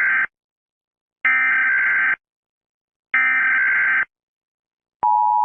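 Emergency Alert System SAME header: harsh buzzy data bursts of about a second each, the end of one and then two more, with a second of silence between them. About five seconds in, the steady two-tone EAS attention signal starts.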